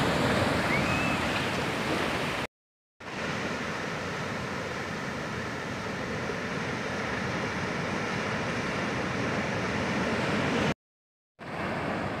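Ocean waves breaking and foamy surf washing up the shore, a steady rushing noise. The sound drops out completely twice for about half a second, once about two and a half seconds in and once near the end.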